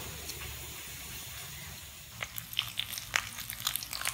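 A faint steady hiss of steam from a pressure cooker's vent, then, from about two seconds in, irregular crackling and popping of beef pieces frying in oil in a pan as a metal spoon stirs them.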